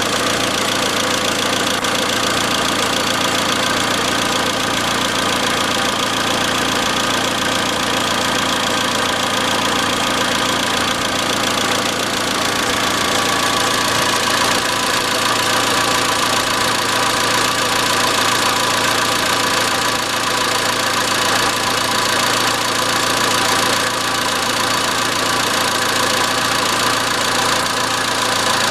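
Iran Khodro Samand's 1.6-litre 16-valve TU5JP4 four-cylinder engine running steadily with a metallic knock, the fault the owner is trying to trace.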